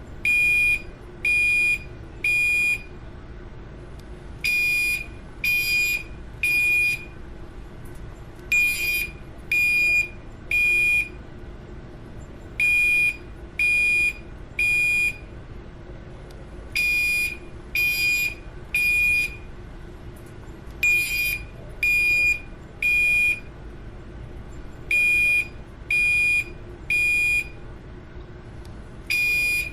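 Bank fire alarm sounding a high, loud beep in repeating groups of three, each group about four seconds apart: the temporal-three evacuation signal.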